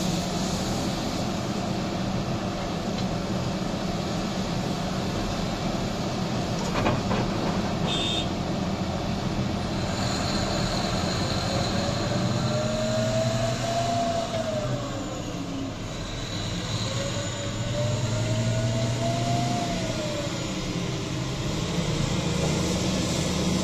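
Heavy mining machines running: the diesel engines of a Volvo EC950E excavator and an XCMG XDE150 haul truck hum steadily while the excavator loads the truck and the truck pulls away. Twice in the middle a whine rises and then falls.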